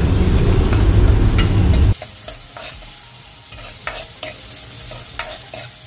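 Chopped onions frying and sizzling in a hammered metal kadai, stirred with a metal spoon that scrapes and clicks against the pan. About two seconds in, a loud low rumble drops out suddenly, leaving quieter sizzling and spoon clicks.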